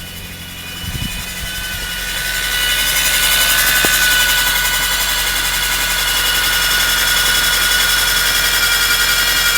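Volkswagen Scirocco Mk2 whining just after starting: a high-pitched whine of several steady tones builds over the first three seconds and then holds steady over a low engine hum.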